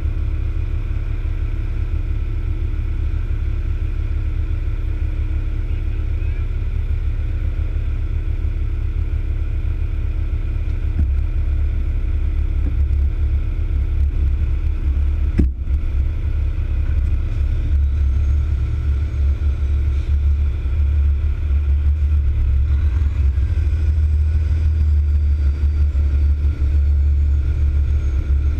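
Fire tanker truck's diesel engine running at idle and low speed, a steady low drone that gets a little louder in the second half as the truck creeps forward. The sound cuts out for an instant about fifteen seconds in.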